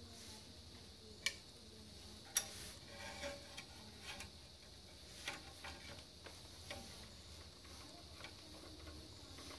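Faint, irregular small clicks and taps of a twist tie and computer cables being handled against a steel PC case. The two sharpest clicks come about a second in and a second after that.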